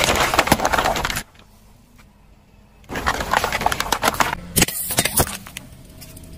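Plastic drink bottles being crushed under a slowly rolling car tyre: two bouts of dense crunching and crackling, each about a second long and about three seconds apart, followed by a few sharp cracks.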